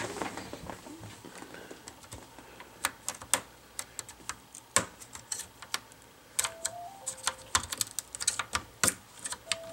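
Irregular sharp plastic clicks and snaps as a spudger pries a laptop's touchscreen and front bezel away from the plastic back cover, the clips and adhesive letting go along the seam. A phone ringtone sounds faintly in short stepped tones about six and a half seconds in and again near the end.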